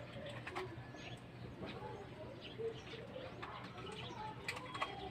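Small clicks and knocks of a snakehead fish being handled and cleaned by hand over a basin of water, with faint short low calls in the background.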